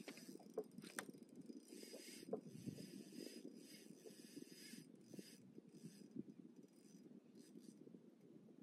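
Fishing reel working against a hooked fish that the angler takes for a big catfish: the drag and gears rasp and ratchet in bursts, the longest lasting a few seconds near the middle, over a low steady rumble.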